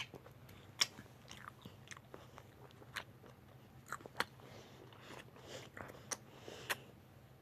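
Faint, irregular chewing and crunching: scattered sharp clicks and short crackles, as of something crisp being bitten and chewed, over a low steady hum.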